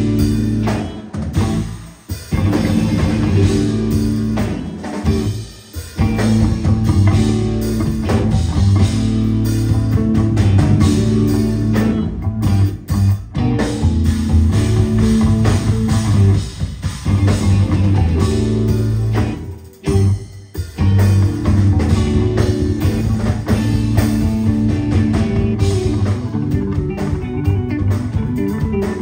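Live band of electric guitar, electric bass and drum kit playing stop-start math rock, with a melodic bass line. The whole band cuts out briefly and together several times, about 2, 6, 12 and 20 seconds in.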